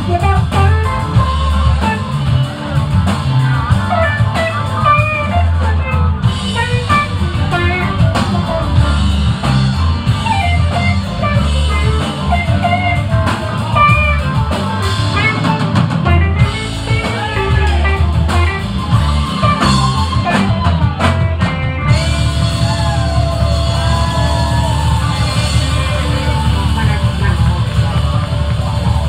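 Live rock band playing loud, with electric guitars and a drum kit; the guitar lines slide and bend in pitch.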